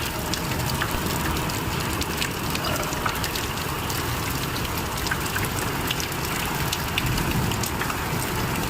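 Rain falling steadily: an even hiss with many small drop ticks scattered through it.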